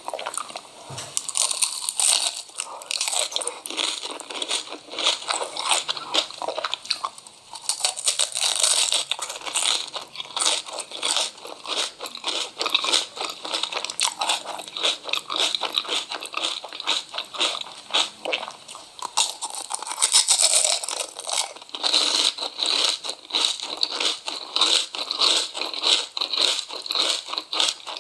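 Close-up eating sounds: crisp food being bitten and chewed, a dense, continuous run of sharp crunches and crackles.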